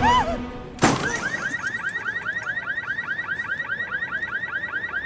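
A shout of "No!", then a sudden heavy crash about a second in as the man who jumped from a balcony hits below. A car alarm goes off straight after in a fast, even run of rising chirps.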